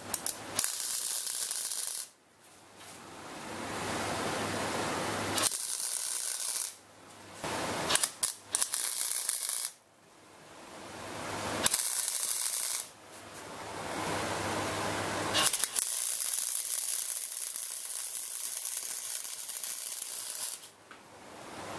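Electric arc welding on steel flat bar and tube: about six bursts of steady hissing arc, each starting and stopping abruptly with short pauses between them, the longest lasting about five seconds near the end.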